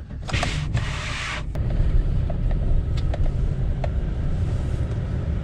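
Steady low rumble of a GMC truck's engine running, heard from inside the cab. Near the start there is about a second of rustling hiss.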